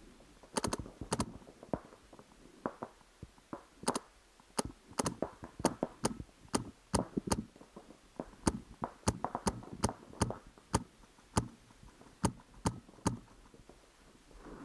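Paintball markers firing: about two dozen sharp pops at irregular intervals, some in quick runs of two or three, with duller thuds among them.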